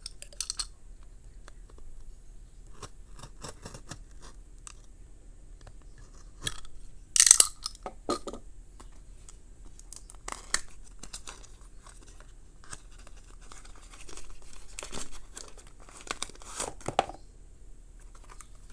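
A multi-tool's box being opened by hand: scattered tearing, crinkling and handling noises of the packaging, with the loudest rip about 7 seconds in and more around 10 seconds and near the end.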